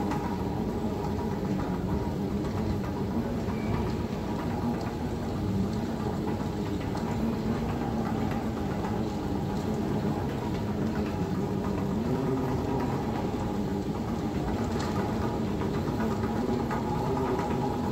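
Steady low mechanical drone with a few hum tones over a haze of noise: airport apron and terminal ambience, aircraft and ground equipment heard through the terminal glass.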